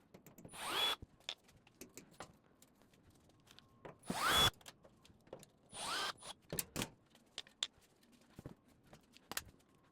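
Power drill/driver working the screws on a clothes dryer's panel, run in three short bursts whose whine rises as the motor spins up, with small clicks of screws and parts being handled in between.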